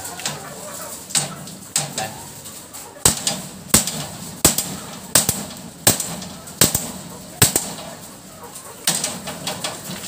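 Hammer blows: a few lighter knocks, then a steady run of about seven hard strikes a little under a second apart, each with a short ring.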